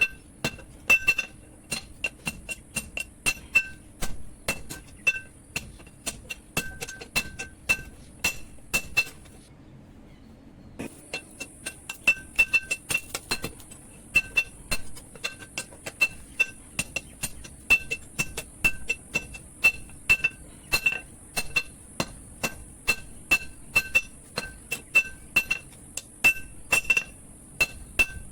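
Blacksmith's hammer beating steel from a power-tiller harrow tine on an anvil, forging it into a boti blade: a steady run of blows, about two to three a second, each with a bright metallic ring. The blows stop briefly about ten seconds in, then resume.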